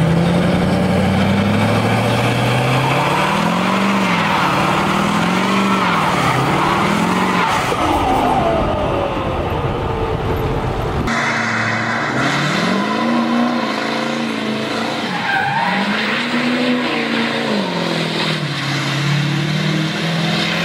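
Ford 6.4-liter Powerstroke V8 turbo-diesel revved again and again, its note climbing and falling with each rev. About halfway through it cuts to another 6.4 Powerstroke truck revving through a burnout, with tires screeching.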